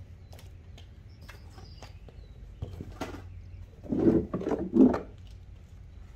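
Hollow plastic car ramps being lifted off a concrete driveway: a knock, then about four seconds in three loud hollow clunks and scrapes as they are picked up. Light footsteps and taps on concrete come before.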